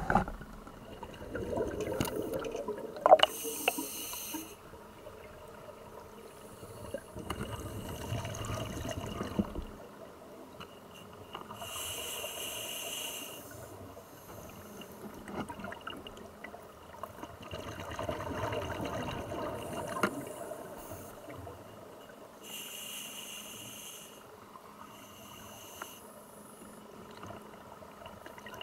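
Scuba regulator breathing heard underwater: hissing inhalations alternating with bubbling exhalations, repeating every few seconds. Water sloshes with a few knocks near the start, as the camera goes under.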